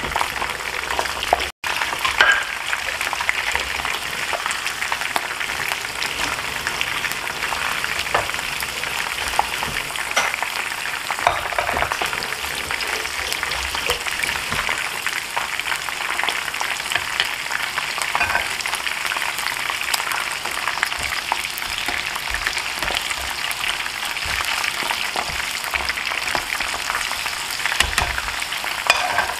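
Batter-coated shrimp deep-frying in a pan of oil: a steady crackling sizzle with many small pops, briefly cut off about a second and a half in.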